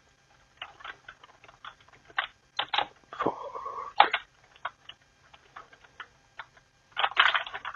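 Computer keyboard keys clicking as a command is typed, single irregular keystrokes with a quicker run of presses near the end.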